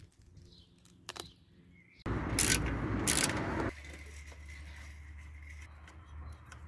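A few sharp metallic clinks and rattles of a bolt and small hardware being handled and fitted by hand, then a fainter steady low hum.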